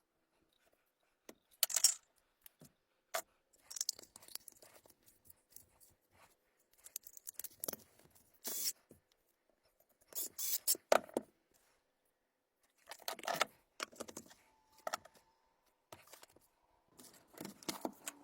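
Workbench handling noises: irregular clicks, taps and scrapes of small tools and plastic battery-pack parts, in short bursts separated by near-silent gaps.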